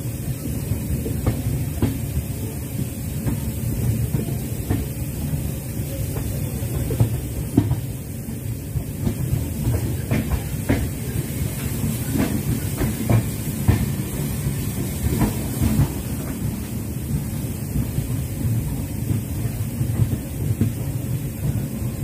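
A moving train heard from its open doorway: a steady rumble of wheels on the track, with irregular clicks and clacks as the wheels pass over rail joints.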